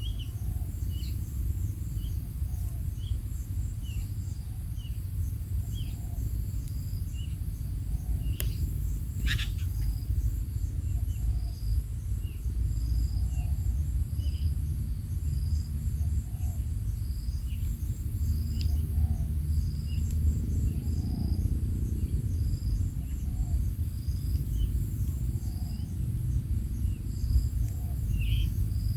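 Insects chirping in a steady rhythm, with short high chirps about once a second, over a constant low rumble. A single sharp click sounds about a third of the way in.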